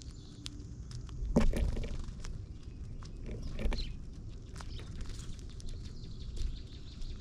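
Birds at a feeder: scattered brief chirps with a few short rustling thumps, over a low steady rumble.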